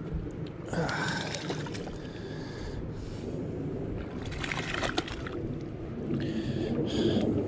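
A hooked trout splashing at the water's surface as it is hand-lined in, the splashing heavier near the end, with a man's voice making short wordless sounds.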